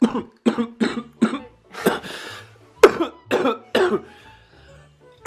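A woman coughing in a fit: two runs of short, harsh coughs about half a second apart, with a longer rasping breath between them about two seconds in.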